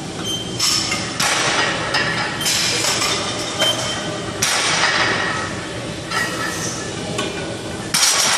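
Loaded barbell clanking against the steel pins of a power rack, with weight plates clinking, in several irregular knocks during rack pulls. The loudest comes near the end as the bar is lowered back onto the pins.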